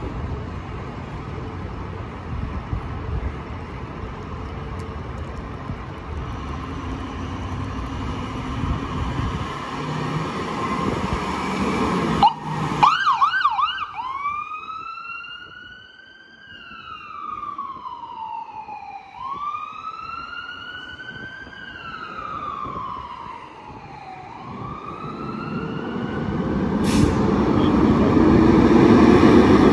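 Emergency vehicle engine rumbling, then an ambulance's electronic siren comes on with a quick burst of fast yelps about twelve seconds in. It settles into a slow wail, rising and falling about every five seconds. Near the end a fire engine's diesel engine accelerates and grows loud, becoming the loudest sound.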